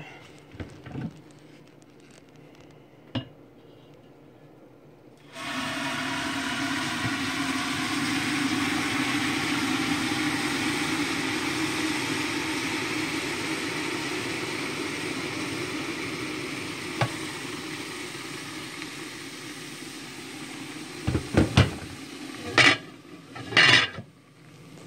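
Hot water poured from a stainless steel kettle into a slow cooker's crock: a steady splashing pour that starts about five seconds in, runs for about fifteen seconds and slowly fades. A few sharp knocks follow near the end as the glass lid is handled.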